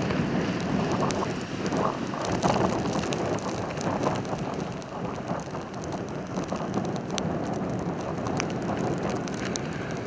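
Strong gusting wind of a snowstorm buffeting the microphone, with scattered faint ticks; the gusts ease somewhat in the second half.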